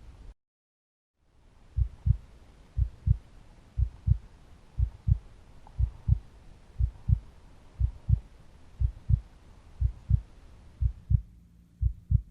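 Heartbeat sound effect: a slow, low double thump (lub-dub) about once a second, starting after a moment of silence.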